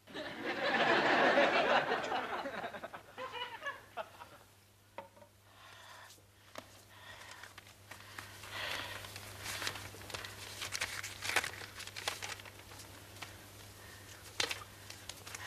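Audience laughter swells and dies away over the first few seconds. After that comes paper rustling and crinkling as letters and envelopes are handled and pulled open, with scattered sharp rustles.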